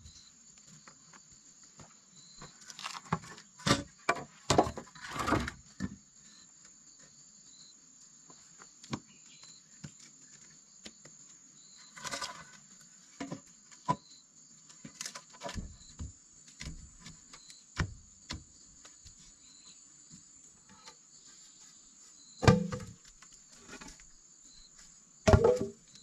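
Bamboo poles being handled and laid on bare earth: scattered knocks, taps and scrapes, with a few sharper thuds near the end. A steady, high insect drone runs underneath.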